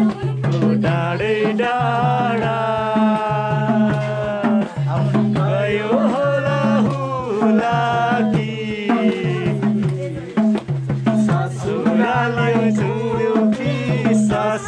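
Music with a steady, repeating hand-drum rhythm under a sliding melody line.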